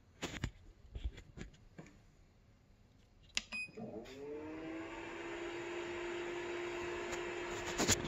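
Epson CW-6000A label printer powering up: a few clicks, a short beep about three and a half seconds in, then its fans spin up with a rising whine that settles into a steady, noisy whirring hum with a hiss. A couple of sharper clicks near the end.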